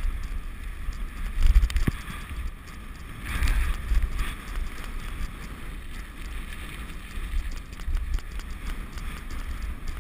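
Wheels rolling over a narrow concrete path on a rig pulled by a harnessed dog, under an uneven low rumble of wind on the microphone that swells twice in the first few seconds, with a few light clicks and rattles.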